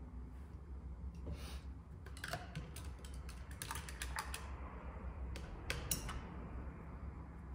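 Paintbrush and painting supplies being handled: a quick run of light clicks and taps about two seconds in, then a few more near six seconds, over a steady low hum.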